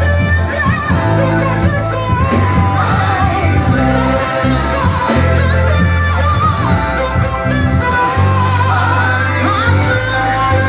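Congregational worship music: voices singing over a band with a steady heavy bass line.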